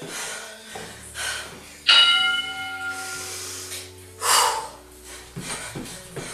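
A workout interval timer's bell chime rings once about two seconds in and fades over about a second, signalling the end of a rest break. A short, loud breath follows about two seconds later, then light, quick footfalls of jumping on a floor mat.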